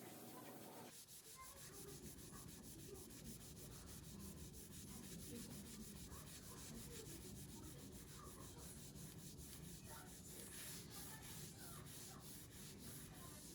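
Faint, quick rhythmic rubbing strokes, several a second, starting about a second in.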